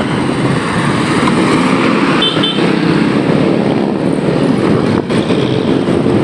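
Riding a motorcycle through city traffic: steady engine, tyre and wind noise, with two short high beeps about two seconds in.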